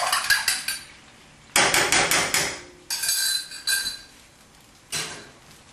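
Kitchen clatter: sharp metallic knocks and clanks of cookware on a gas stove, in three short bursts about a second apart, the middle one ringing briefly.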